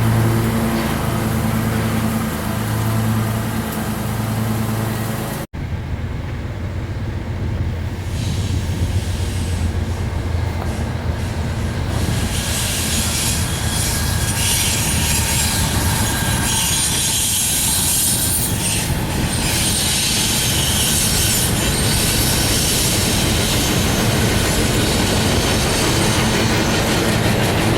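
Westbound Norfolk Southern intermodal train rolling past, its wheels clacking and squealing on the rails. A low pulsing drone fills the first few seconds and breaks off abruptly about five seconds in, and the high squeal grows from about eight seconds on.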